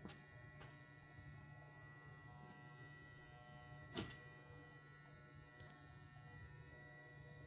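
Near silence: a faint, steady electrical hum, with a small click about half a second in and a sharper click about four seconds in.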